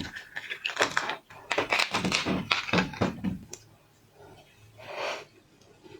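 Quick cracking and clicking snaps of a large shrimp's shell being broken and peeled by hand, dense for the first few seconds and then tapering off. A short breathy hiss comes about five seconds in.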